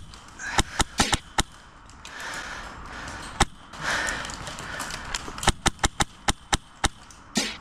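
Shots from an MTW Billet HPA airsoft rifle firing at a target: sharp pops, a few single shots spaced apart, then a quick string of about eight shots in the second half.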